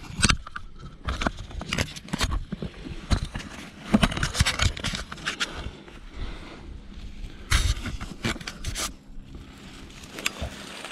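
Dry grass and saw palmetto fronds crunching and scraping against clothing and the camera as a person pushes through dense brush on foot, in a run of irregular rustles and sharp crackles.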